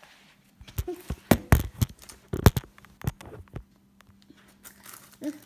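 A run of irregular knocks and thumps, about a dozen over three seconds, the loudest about one and a half and two and a half seconds in, followed by fainter small knocks.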